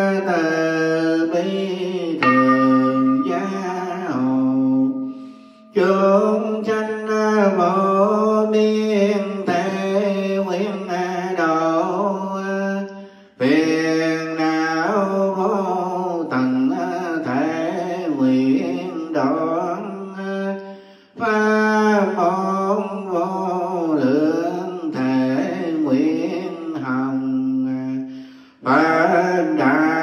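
A Buddhist monk's male voice chanting a Vietnamese prayer in a slow, wavering melody. The syllables are drawn out into long phrases, with a short breath between phrases about every seven or eight seconds.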